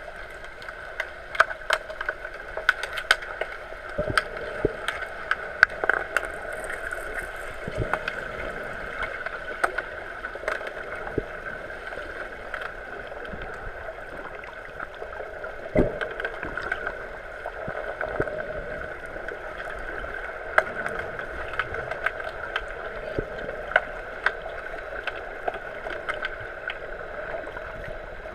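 Underwater hockey heard through an underwater camera: a steady muffled water hiss with many scattered sharp clicks and knocks from the players' sticks and the puck on the pool floor, one heavier knock a little past halfway.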